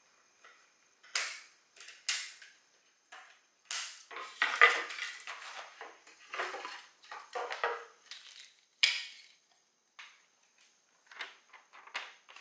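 Scissors snipping through plastic packing straps on a stack of flat-packed pine board panels, two sharp snips in the first couple of seconds. Then the loose pine boards knock and clatter against each other as they are lifted and shifted apart, with a few lighter knocks near the end.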